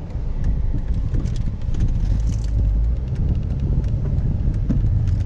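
Steady road noise inside a moving Dodge car's cabin on a wet road: a low rumble from the engine and the tyres on wet pavement, with scattered light ticks.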